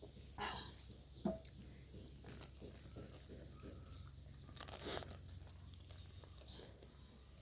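Chocolate being bitten and chewed close to the microphone: a sharp snap about a second in, then small crunching clicks, and a short burst of noise near five seconds.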